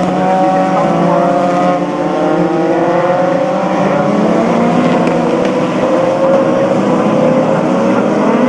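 A pack of open-wheel formula race cars running together, several engines heard at once, their pitches overlapping and rising and falling as they accelerate and lift through the corners on a wet track.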